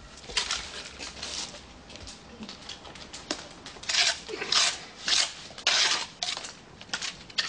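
A run of short, irregular scraping strokes, about two a second, louder in the second half.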